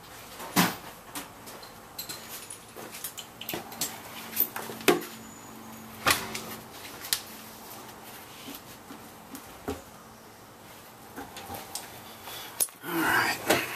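Hand tools clinking and knocking against metal as a wrench is fitted onto a brake caliper bolt: irregular sharp clicks, with a short burst of scraping and rattling near the end.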